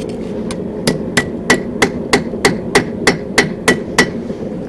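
Blacksmith's hand hammer striking a mild-steel bar on the anvil, a steady run of about three blows a second with a short ring after each, stopping about four seconds in. The quill is being squared up before it is rounded.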